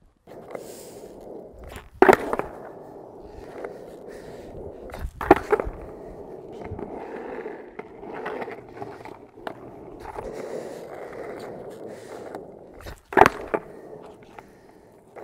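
Skateboard wheels rolling steadily over pavement, with three sharp clacks of the board striking the ground about two, five and thirteen seconds in.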